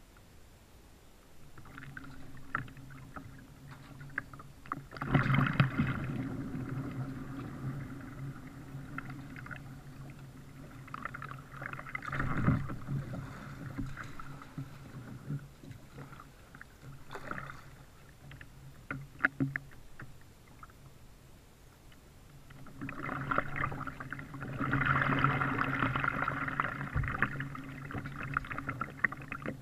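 Kayak being paddled: paddle strokes in the water and water washing along the plastic hull, with scattered small knocks and drips. There are louder spells of paddling about five seconds in, around twelve seconds, and near the end.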